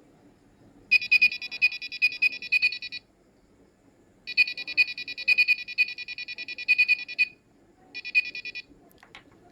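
Piezoelectric PCB-mount buzzer of an Arduino infrared burglar alarm sounding a high, rapidly pulsing beep in three bursts: about two seconds, then about three seconds, then a short one near the end. Each burst is set off by an object breaking the infrared beam.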